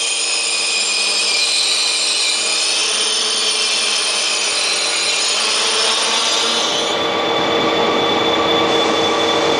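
KTX high-speed train cars rolling slowly past along a station platform, with a continuous high-pitched whine and squeal over a steady rumble that shifts about seven seconds in.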